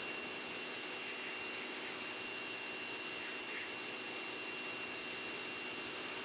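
Electric pressure washer running: a steady hiss of spray with a thin, high, steady whine over it.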